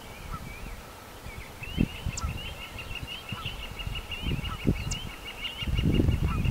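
Small birds chirping outdoors: many short, high, overlapping calls, settling into a quick regular series of chirps near the end. Low rumbles come and go underneath and grow heavier in the last second.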